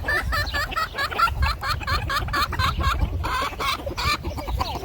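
A chicken clucking in a quick run of short, clipped calls, about five a second, with a few more calls near the end.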